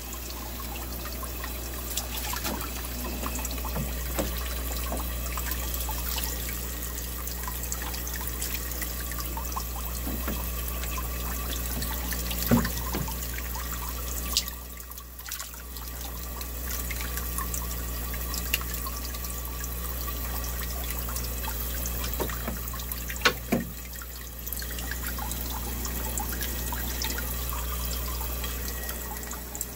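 Water splashing and bubbling steadily in a live-bait minnow tank, fed by a pipe and aeration, over a low steady hum. The noise dips briefly twice, with a few sharp knocks.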